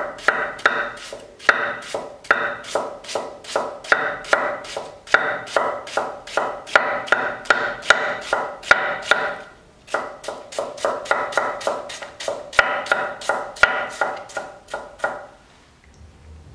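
Red cabbage being finely shredded with a 230mm tsuchime gyuto chef's knife on an end-grain wooden cutting board: a steady run of crisp knife strokes, about three a second. The chopping pauses briefly about ten seconds in and stops about a second before the end.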